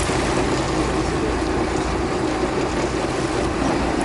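A fishing boat's engine running steadily underway, a constant drone with wind and water noise over it.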